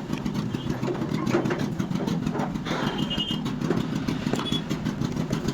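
A motor running steadily with a rough low rumble.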